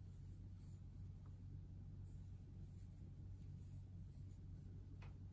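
Faint scratching and rustling of a crochet hook drawing yarn through stitches, over a steady low hum, with a small click about five seconds in.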